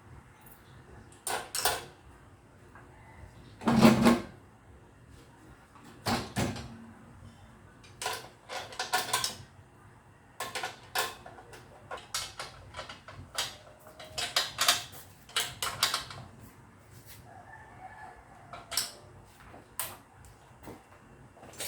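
Metal hand tools clinking and knocking on an air compressor's belt-adjustment hardware while the drive belt is retensioned: a run of sharp clicks and knocks, with a heavier clank about four seconds in.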